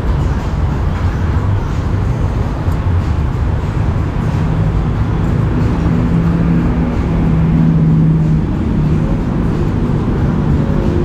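Steady road traffic rumble. A vehicle engine hum swells through the middle and peaks about eight seconds in before fading.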